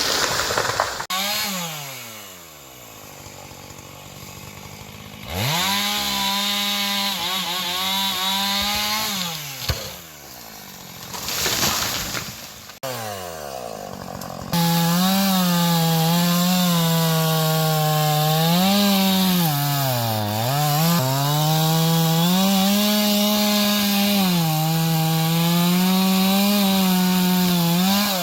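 Gasoline chainsaw cutting into an oak trunk. It revs high, drops back to idle early on, and revs up again. Over the second half it runs flat out, with its pitch sagging each time the chain bites into the wood, most deeply about twenty seconds in.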